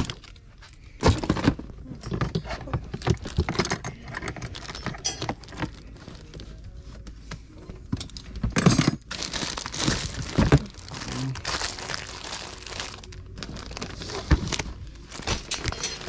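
Rummaging through a plastic bin of extension cords and plastic organizers: irregular crinkling, rustling and clicking of plastic and cords being handled, with a few louder clattering knocks about a second in and again around nine to ten seconds in.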